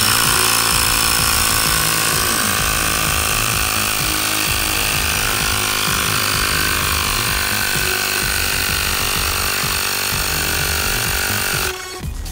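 Ryobi cordless tire inflator's compressor running steadily, pumping air into a plastic water bottle through a tire valve in its cap, then cutting off suddenly just before the end.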